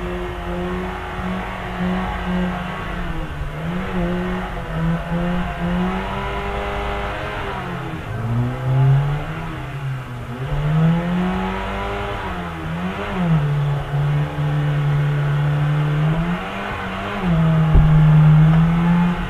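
Car engine revving and easing off over and over: its pitch holds high, drops, then climbs again several times, with deep dips about a third of the way in and again past the middle.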